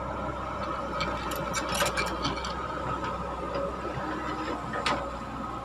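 Caterpillar hydraulic excavator's diesel engine running steadily with a high whine as the boom swings and the bucket lowers into the pit. A cluster of clanks and rattles comes from about one to two and a half seconds in, and a single sharp clank near the end.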